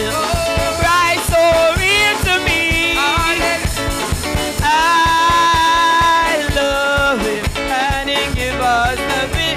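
Live gospel chorus music from a church band: a steady, upbeat drum-and-bass rhythm under a melody line that slides between notes and holds one long note around the middle.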